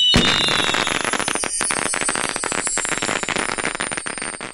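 Fireworks sound effect: a bang just after the start, then dense crackling that dies away near the end.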